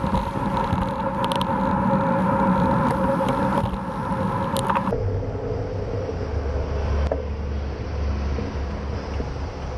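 Wind and road noise on a bicycle-mounted camera riding in traffic, with a steady hum through the first five seconds that cuts off abruptly, followed by a low wind rumble on the microphone.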